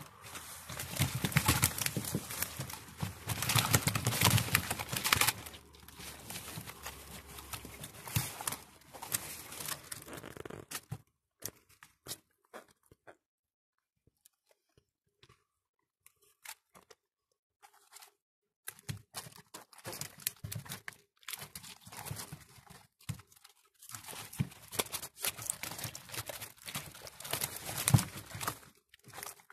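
Rustling and crunching handling noise close to the microphone, dense for about ten seconds, then stopping, then returning as scattered crackles and clicks.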